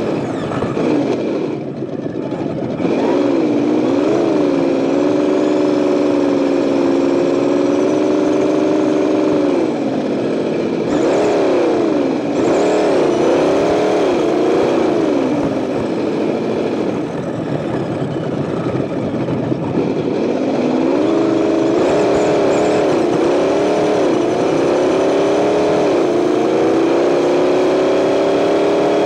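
Simulated engine note from an Associated ESS-One sound unit on a Tamiya Lunch Box RC truck, heard on board and following the throttle. It holds steady for stretches and revs up and down several times, with a dip about two seconds in. Steady road noise from the tyres on asphalt runs underneath.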